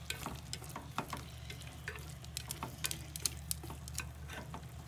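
Wooden chopsticks stirring chicken and vegetables in sweet-and-sour sauce in a non-stick pot, with irregular clicks and taps of the chopsticks against the pot over a soft sizzle. A steady low hum runs underneath.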